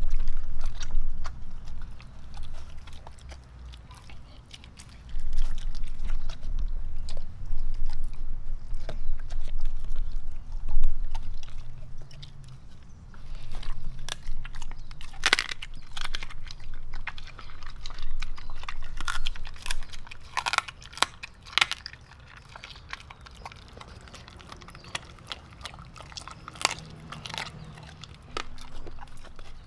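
A dog eating raw ground beef, liver and chicken drumsticks from a stainless steel bowl: wet chewing with sharp crunches, the loudest crunches bunched in the second half.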